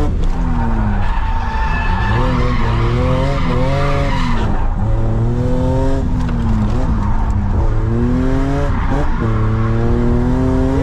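BMW E30 drift car heard from inside the cabin while drifting: the engine revs climb and fall repeatedly, dropping back every second or two, with tyres skidding under it.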